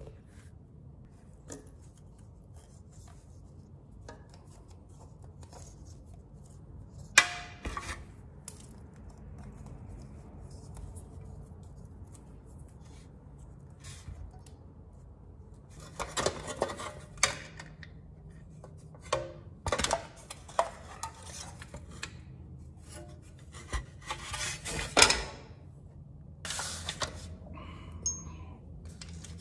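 Hand tools and a metal skid plate being handled against a motorcycle's underside: scattered clinks, scrapes and short metal knocks. The loudest knocks come about seven seconds in and again near 25 seconds, and the clatter grows busier in the second half as the plate is set into position.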